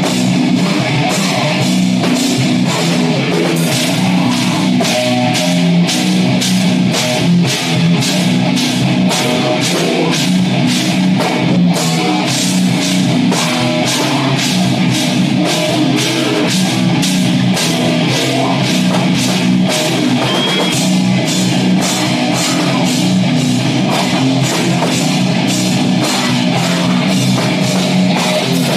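Death metal band playing live: drum kit hitting a fast, even beat of about three to four strikes a second under distorted guitar and bass, with a female vocalist growling into a microphone.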